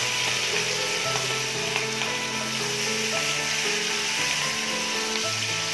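Hilsa fish steaks sizzling steadily as they fry in hot oil in a kadai, with background music of held notes playing alongside.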